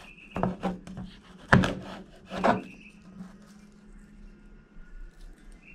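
Knife slicing through a nopal cactus pad onto a cutting surface: about four sharp cuts in the first two and a half seconds, the loudest about a second and a half in, then only faint scraping.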